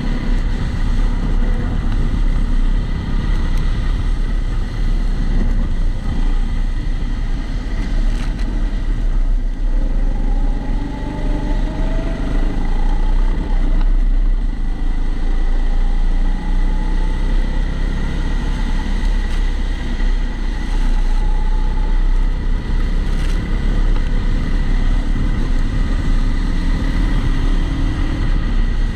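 Onboard sound of a Kombikart Eco kart running on a wet track, its engine note rising and falling with throttle through the corners, muffled by the camera's waterproof housing. A steady high whine sits over it.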